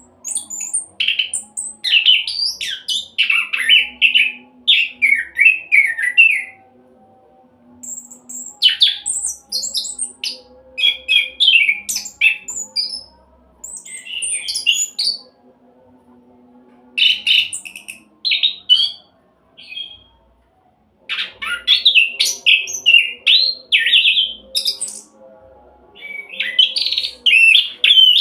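Orange-headed thrush (anis kembang) singing a fast 'roll' song: rapid, varied high-pitched runs in bursts of several seconds, broken by short pauses.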